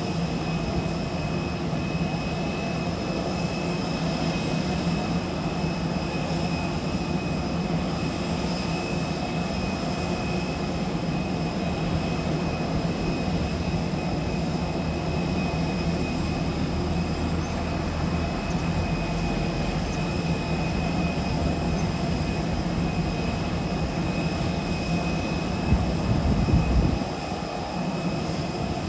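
Parked Airbus A320-family airliner running with a steady high whine over a low drone. A brief louder low rumble comes near the end.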